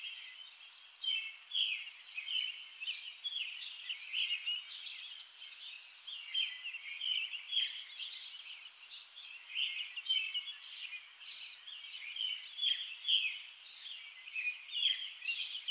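Small birds chirping and singing outdoors, a steady run of short high chirps with no pause.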